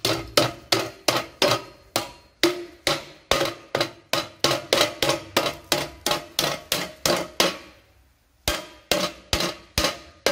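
A hammer beating on the old, corroded steel exhaust silencer of a Fiat 126p, about three blows a second, each with a short metallic ring. After a brief pause about eight seconds in, the blows start again.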